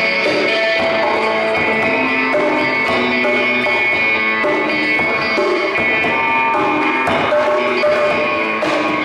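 Live improvised music: an electric guitar through a valve amp plays sustained, sitar-like notes over rope-tuned drums struck with a stick, with a few sharp drum hits.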